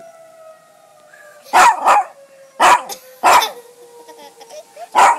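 Dog barking five short, loud times over a siren's long, steady tone that slowly falls in pitch as it winds down.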